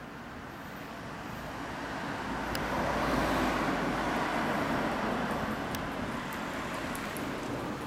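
A road vehicle passing by on the street, its engine and tyre noise swelling to a peak about three seconds in and then fading away.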